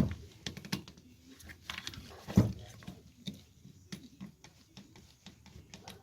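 Irregular light clicks and knocks of metal and plastic motor parts being handled and worked loose while an electric lawnmower's motor is taken apart, with one louder knock about two and a half seconds in.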